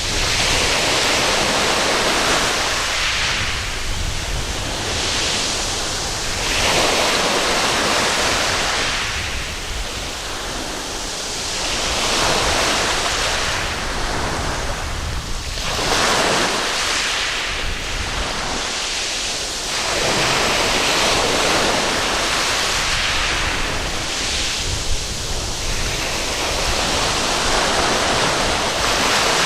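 Waves breaking and washing up a sandy beach, the surf rising and falling in a surge every three to four seconds.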